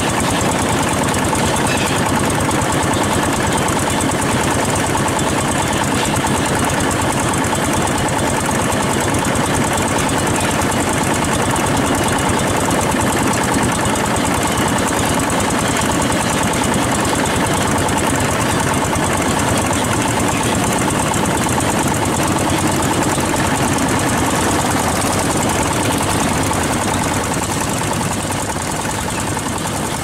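Long-tail boat engine running steadily under way, with a rapid, even knocking beat; it eases off a little near the end.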